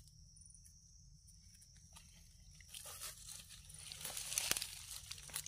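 A knife scraping soil off the bases of freshly dug Amanita mushrooms. Short crunchy scrapes and rustles come about three seconds in and are loudest about four seconds in.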